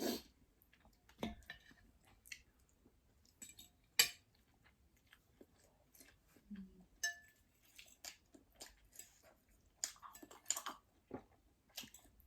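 Close-miked chewing of ramen, with scattered clicks and clinks of a spoon and fork against the bowl. The sharpest click comes about four seconds in.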